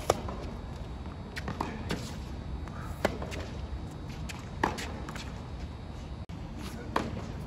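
Tennis rally on a hard court: sharp racket strikes on the ball come every one and a half to two and a half seconds, four in all, with fainter knocks between them.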